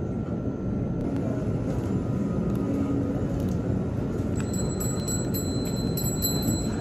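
Plastic wrapper of a packaged sandwich being peeled open, with light crinkling over a steady low hum of shop background noise.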